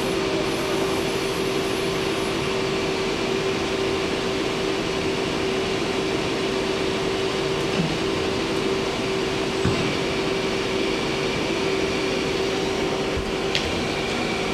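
Steady machine hum with one constant tone from a running Hardinge SR 150MSY CNC turning center.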